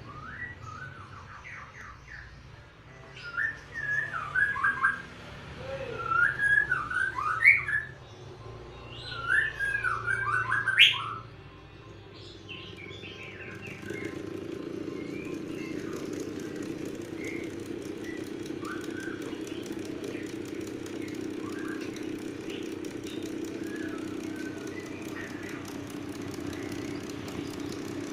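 Birds chirping in short, varied calls for the first dozen seconds. About fourteen seconds in, a steady hum sets in and holds: a worn-out electric fan running without its guard.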